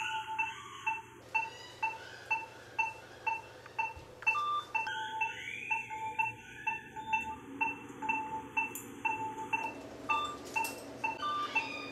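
Patient monitor in the operating room beeping steadily, about two short beeps a second at one pitch, keeping time with the anaesthetised dog's heartbeat.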